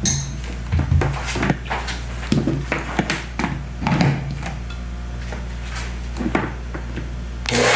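A run of scattered clicks and knocks from handling a Taiff hair dryer. About seven and a half seconds in, the dryer is switched on and its motor and fan run steadily, without the abnormal noise, now that the worn motor bushing has been replaced.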